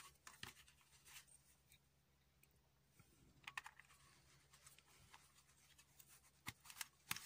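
Faint clicks and scratches of LED bulbs being twisted and seated into the sockets of a car's rear-light bulb holder, scattered irregularly over near silence.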